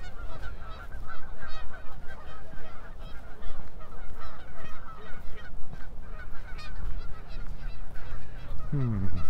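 A flock of Canada geese honking continuously, many short calls overlapping one another; spring calling that the walker puts down to the mating season.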